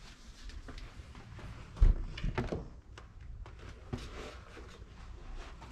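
Front door being opened: a dull thump a little under two seconds in, then several quick clicks and knocks of the handle and latch, and one more click about four seconds in.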